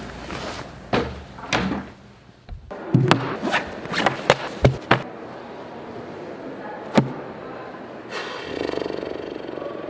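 A backpack being handled and its contents set down on a wooden table: a string of knocks and thuds, a single sharp knock about seven seconds in, and a rough scraping near the end.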